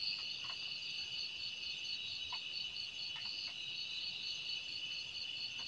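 Night chorus of crickets and other insects: steady high-pitched trilling in several layers, one of them pulsing at an even pace of about four beats a second. A few faint knocks are heard here and there.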